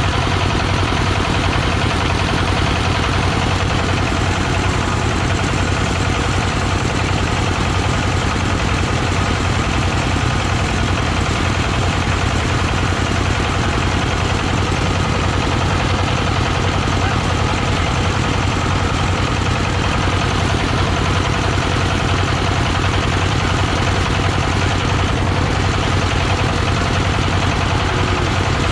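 Mobile rice threshing machine running steadily: a loud, unbroken engine-and-drum drone with a dense hiss over it, unchanging throughout.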